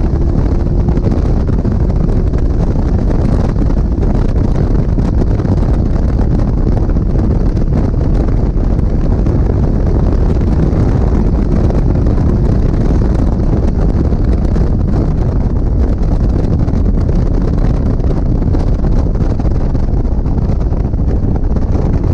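Wind buffeting hard on the onboard microphone of an open-cockpit Locost 7 at speed, with the car's engine and road noise running underneath.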